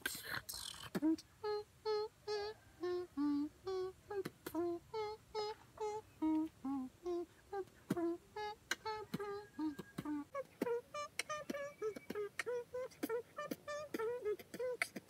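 A young man beatboxing a song: a hummed tune carried over mouth-made clicks and pops in a steady rhythm. About two-thirds of the way in, the tune moves higher and the notes come quicker.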